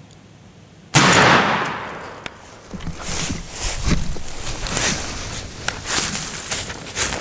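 A single shotgun blast about a second in, with a long fading echo, followed by repeated crunching and rustling in dry leaves.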